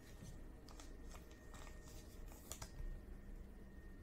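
Faint soft clicks and rustles of trading cards being handled in the fingers, over a steady low hum and a thin, steady high-pitched tone.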